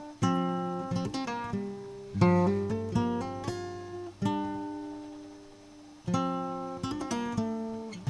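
Background acoustic guitar music: chords struck about every two seconds, each ringing and fading, with quick picked notes between them.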